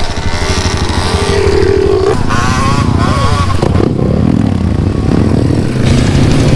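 Dirt bike engines running on a trail, their pitch rising and falling as the riders work the throttle about two to four seconds in.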